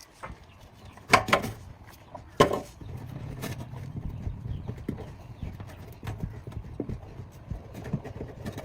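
Two loud knocks about a second apart, each with a short ring, followed by irregular light clicking and tapping.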